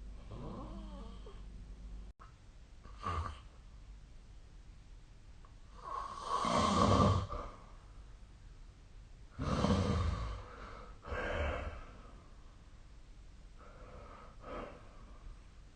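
A sleeping person snoring: about five noisy breaths a few seconds apart. The longest and loudest runs for over a second about six seconds in, with another big one around ten seconds.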